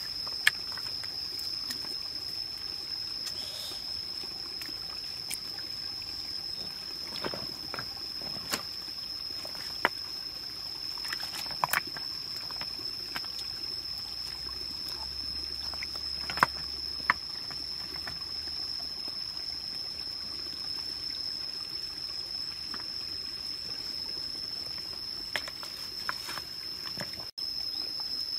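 Shallow rocky stream trickling, with a handful of sharp knocks and splashes as hands shift stones in the water. A steady high insect drone runs underneath.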